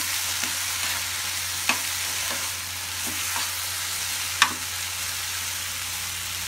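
Sliced onions and tomatoes sizzling in oil in a frying pan as they cook down, with a metal spoon stirring and scraping through them and a few sharp clicks as it knocks against the pan.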